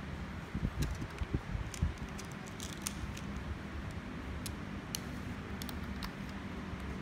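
Plastic parts of a technical model assembly kit being handled and fitted together: light clicks and clatter of perforated plates and brackets, with a few soft thumps in the first two seconds, over a steady low hum.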